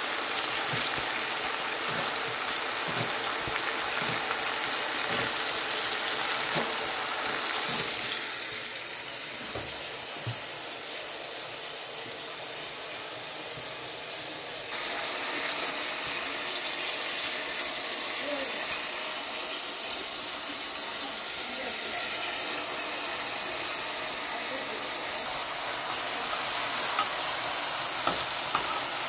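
Pieces of meat frying in oil in a pot, with a steady sizzle. The sizzle is quieter for a stretch in the middle, and there are a few sharp clicks near the end.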